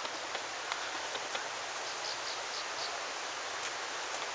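Steady outdoor rushing noise, like wind or flowing water, with a few light clicks and a short run of faint high chirps about two seconds in.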